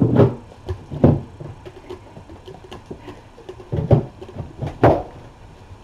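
A few dull thumps and knocks with light patter between: two louder thumps about a second apart at the start and two more about a second apart near the end.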